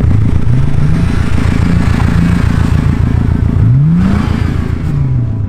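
A car engine revving hard, its pitch climbing in the first second, climbing sharply again near four seconds and dropping off near the end, over a dense low rumble.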